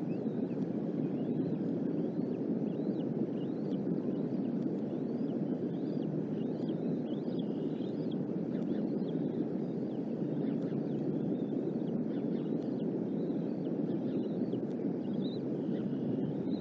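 Strong wind buffeting the nest-cam microphone as a steady low rush. Many faint, short, high bird chirps come through it.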